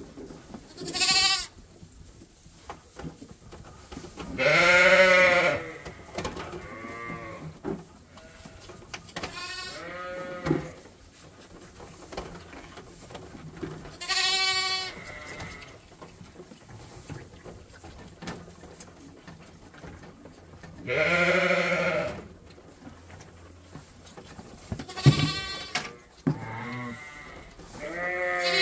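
Sheep and lambs bleating on and off, about eight separate calls, some higher and short, others lower and drawn out.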